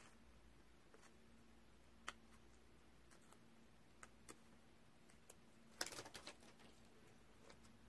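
Near silence with faint paper handling: a few soft isolated clicks, then a short crackly rustle about six seconds in as the backing is peeled off a cut piece of sticker colour paper. A faint steady hum underneath.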